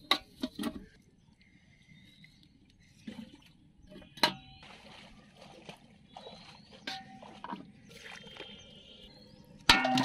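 Plastic soda bottles knocking and clunking against a large aluminium pot partly filled with water, in a string of separate sharp knocks, the loudest about four seconds in, with a denser clatter just before the end.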